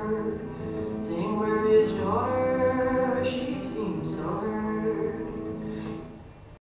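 Slow, drawn-out singing of a folk-ballad melody, long held notes sliding from pitch to pitch, fading and cutting off just before the end.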